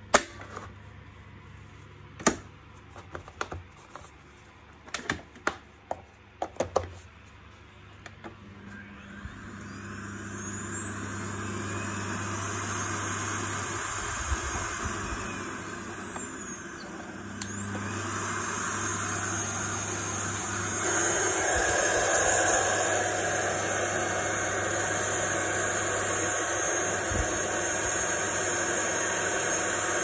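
Plastic clicks and knocks as the housing of an Electrolux Pure D8.2 Silence vacuum cleaner is pressed shut. Then, about eight seconds in, its motor starts with a rising whine. The whine drops and climbs again as the power dial is turned, and the motor then runs steadily, louder from about two-thirds of the way through. This is the test run of the motor on a newly replaced electronic board that had cut out on maximum/SMART power.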